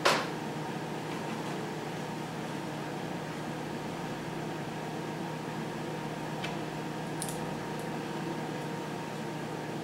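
A sharp knock dies away right at the start, then a steady hum of room tone with a few faint ticks about two-thirds of the way through.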